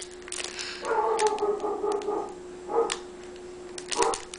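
A dog whining, one drawn-out whine of about a second and a half followed by two short whimpers, with a brief crinkle of a foil booster pack at the start.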